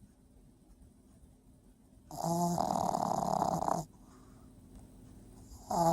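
Pekingese dog snoring loud and deep: one long snore about two seconds in, quiet breathing in between, then another snore starting near the end.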